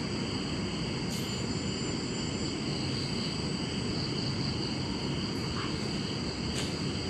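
Night insect chorus of crickets: a steady high-pitched chirring at several pitches over a low outdoor rumble.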